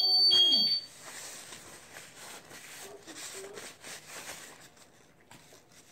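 An electronic alarm beeps steadily alongside a brief voice and stops about a second in. After that comes quiet, crackly crunching from baked Argo cornstarch chunks being chewed and broken apart by hand, the crunchy, squeaky texture of baked laundry starch. The crunching fades near the end.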